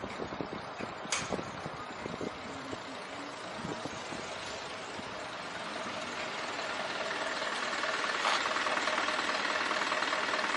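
A motor vehicle engine idling close by amid street traffic, getting louder in the second half. A few knocks and one sharp click sound in the first couple of seconds.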